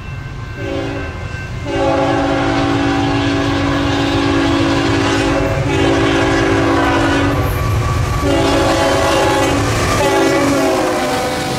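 BNSF freight diesel locomotive's air horn sounding a series of blasts for a grade crossing: a short one, then a long blast of about four seconds, then three shorter ones. Under the horn the lead locomotives and train rumble steadily as they pass close by.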